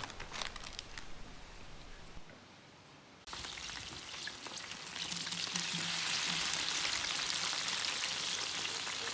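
Food sizzling in oil in a paella pan over a wood fire, a steady hiss with small crackles. It drops out briefly about two seconds in, then returns and grows louder about five seconds in.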